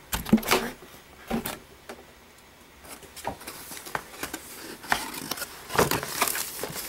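Handling noise of unpacking: a few sharp knocks in the first second and a half, then irregular rustling and scraping as accessories are taken out of a cardboard box and their packaging.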